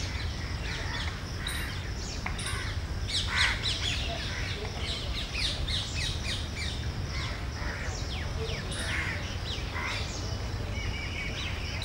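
Birds chirping in many quick, short, falling calls, with crows cawing now and then, over a steady low background rumble.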